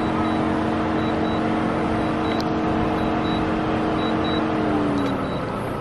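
A motor vehicle's engine runs steadily with a constant hum, and its pitch eases down slightly near the end.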